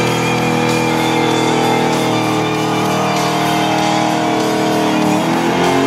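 GMC panel truck's engine held at high revs during a smoky burnout, running steadily, then falling in pitch near the end as the revs drop.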